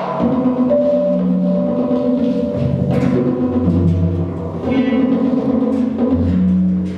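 Live electronic music played on synthesizers: deep held bass notes that change pitch every second or two under sustained higher tones, with hissing noise swells about three and five seconds in.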